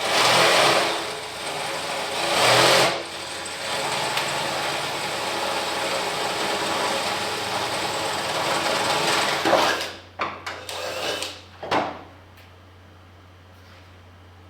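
Electric drill boring a pilot hole through an aluminum skid plate, running under load for about ten seconds with two louder surges in the first few seconds, then stopping. A few short knocks and clicks follow.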